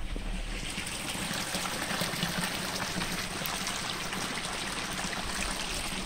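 Clear water flowing in a mountain valley stream: a steady rushing sound.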